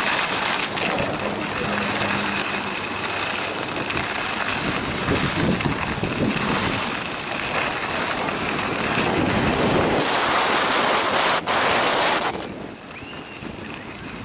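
Skis hissing and scraping over groomed snow, with wind rushing over the handheld camcorder's microphone during a downhill run. The noise drops off sharply about twelve seconds in as the skier slows.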